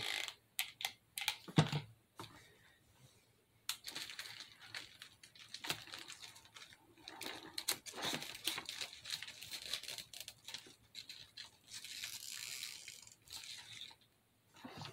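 Scattered light clicks, taps and rustling from lightweight handmade craft pieces being handled and pressed into place on a hot-glued decoration, with a couple of short quiet gaps.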